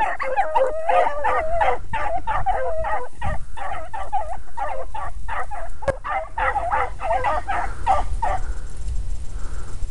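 A pack of young hounds baying together in full cry while running a rabbit by scent. Several voices overlap in a continuous chorus that fades out about eight seconds in.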